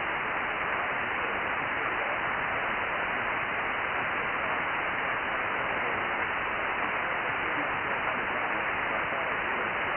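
Steady hiss of static from an Icom IC-9700 receiver on the RS-44 satellite's linear-transponder downlink, with no clear signal above the noise.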